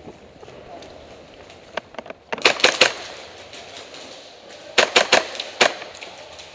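Airsoft guns firing in short bursts of sharp cracks: a few light clicks, then a quick run of about four shots about two and a half seconds in, another run of about four near five seconds, and one more shot just after.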